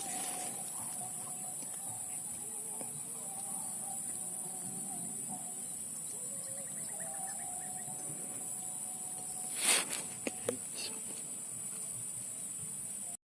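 Steady high-pitched chirring of insects, with one sharp crack about ten seconds in and a couple of fainter clicks just after it.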